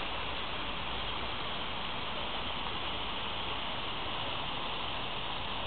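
Fountain water splashing into its basin: a steady rushing hiss.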